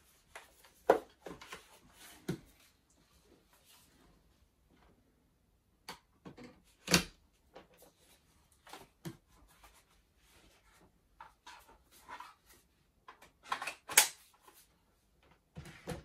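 Plastic clicks and knocks from a Miele Triflex HX1 cordless stick vacuum being taken apart by hand, its motor unit unlatched and refitted on the stick; the parts fit stiffly. Scattered soft clicks, with two sharper knocks about seven seconds in and again near the end.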